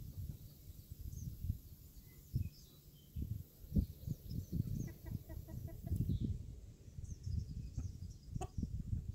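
Hens and a rooster clucking as they forage, with a short quick run of clucks about five seconds in. Low rumbling thumps run underneath throughout, and a sharp click comes near the end.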